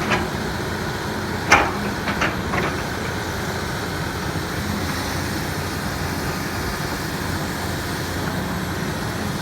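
Hydraulic excavator's diesel engine running steadily, with a few sharp clanks about a second and a half in.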